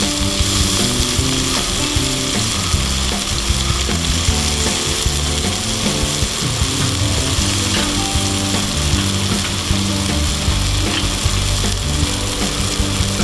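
Food sizzling steadily on a campfire grill while cooking hamburgers, under background music with short, shifting low notes.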